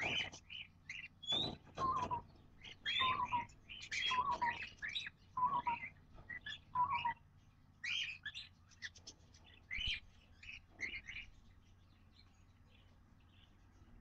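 Parrot chicks in a wooden nest box cheeping and chirping in bursts as an adult cockatiel feeds them, with a short falling note repeated about every second. The calls die away about three seconds before the end.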